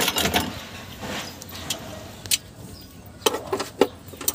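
Socket wrench working the bolts of an engine's timing belt cover: irregular sharp metallic clicks and clinks, with a cluster of them near the end.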